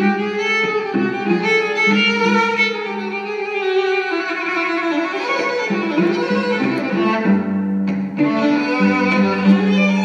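Live violin music: a bowed violin melody over a steady, sustained low note.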